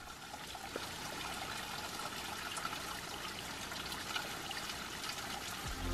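A small trickle of water running down a mossy rock face onto stones, a steady splashing with many little drips.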